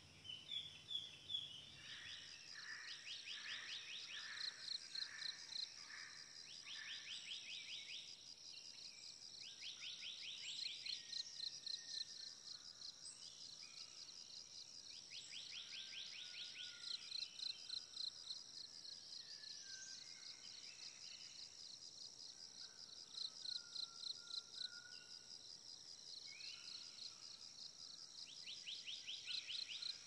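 Faint nature ambience: a steady high pulsing insect drone, with repeated second-long bursts of rapid trilling calls and scattered faint whistled bird calls.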